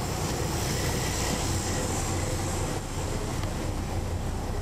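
Detroit Diesel Series 60 straight-six diesel of a 2002 MCI D4000 coach running steadily with a constant low hum, heard from inside the rear of the bus over the engine.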